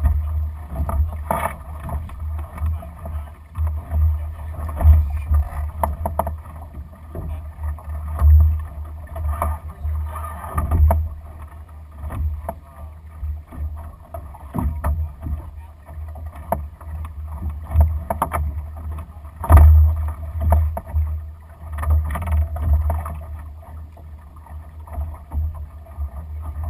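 Lightning sailing dinghy under way: water splashing and slapping along the hull, over a low, gusty rumble of wind on the microphone. Irregular knocks come throughout, the loudest about twenty seconds in.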